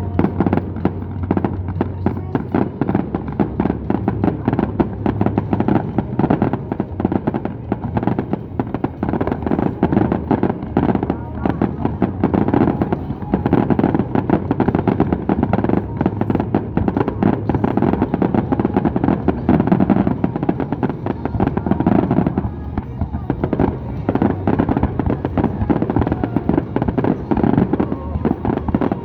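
Aerial fireworks going off in a dense, continuous barrage of bangs and crackle, with music playing underneath.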